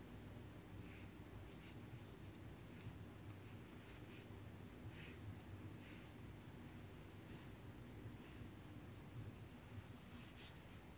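Faint, scratchy rustling with irregular light clicks as cotton yarn is drawn and caught with a metal crochet hook, stitch after stitch, a little louder near the end.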